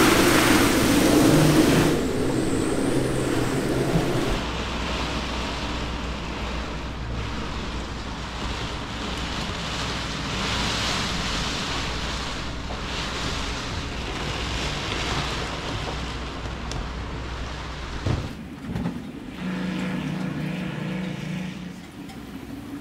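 Hurricane wind and heavy rain lashing a moored sailboat, loudest in the first couple of seconds. Through the middle it is rain on the cabin with a steady low hum, and near the end a short, low, pitched drone.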